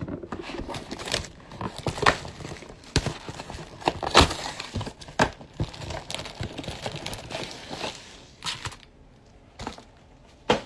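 Plastic wrap on a trading-card mega box crinkling and tearing, with sharp crackles and snaps as the box is opened and the packs are handled. It goes quieter for the last couple of seconds, with a few single taps.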